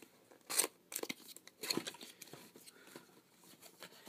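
Cardboard and paper packaging being opened by hand: a few short, sharp tearing and scraping sounds, the loudest about half a second in, with quieter rustling of the box between.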